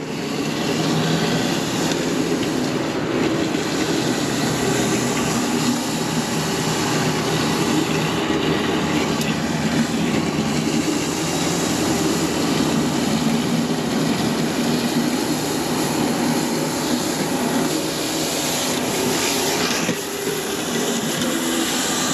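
Stihl RB 400 gas pressure washer running steadily, its engine hum under the hiss of the high-pressure water jet blasting the concrete driveway clean. The sound dips briefly near the end.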